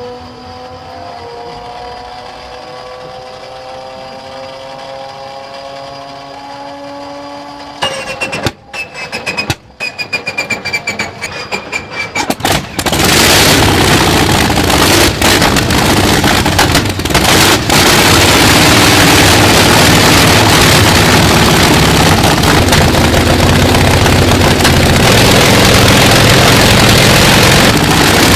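A high-performance engine runs with its pitch slowly rising. About eight seconds in come a run of sharp crackles and pops, and from about thirteen seconds a very loud, steady engine noise sets in and holds.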